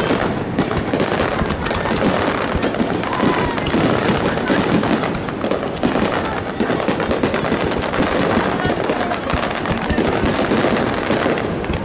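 Aerial fireworks barrage: many shells bursting in quick succession, a dense, unbroken run of bangs with no pause.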